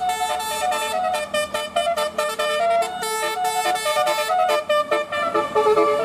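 Indonesian bus 'telolet' multi-tone air horn playing a quick melody, a run of short notes that jump from pitch to pitch several times a second.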